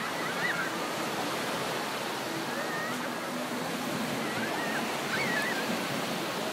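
Steady rush of surf breaking on a beach, with faint distant voices calling out now and then.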